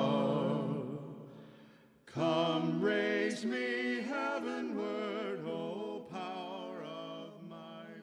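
Closing music of a cappella voices singing in harmony. A held chord fades out, a new phrase starts about two seconds in, and the singing slowly fades toward the end.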